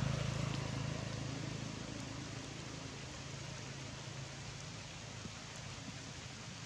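A low engine hum from a passing vehicle fading away over the first two seconds, leaving a steady outdoor hiss.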